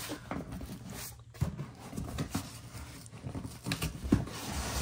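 Shipping box and packaging being handled: irregular rustling and scraping with a few sharper knocks as boxes are pulled out.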